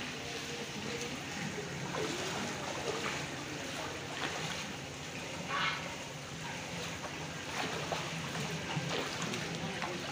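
Water sloshing and dripping as fish spawn are scooped with a bowl from a cloth net held in a shallow tank, with a few short splashes.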